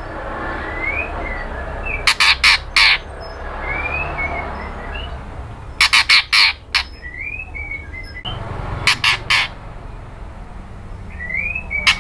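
White-rumped shama giving three bursts of three or four loud, harsh calls a few seconds apart, with faint short rising chirps in between.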